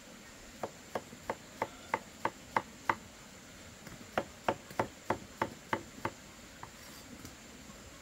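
A cleaver chopping on a wooden board in quick, even strokes, about three or four a second. There are two runs with a pause about three seconds in, then two single chops near the end.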